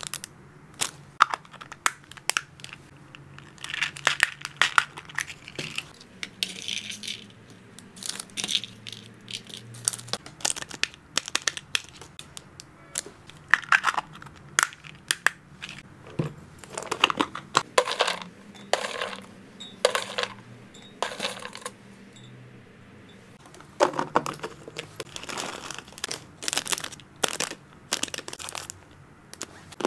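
Close-miked handling of small clear plastic snack bags and a small plastic latched box: crinkling plastic and sharp plastic clicks coming in quick clusters, with short pauses between.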